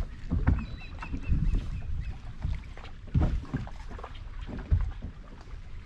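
Small waves slapping against a fibreglass bass boat's hull, heard as irregular low knocks and sloshes.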